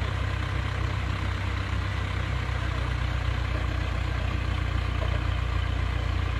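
A heavy engine running steadily at idle, a constant low rumble.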